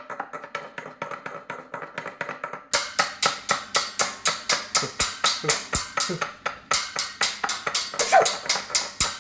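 Fast, steady tapping on a hard object, several sharp taps a second, played as improvised percussion; soft at first, then clearly louder from about a third of the way through.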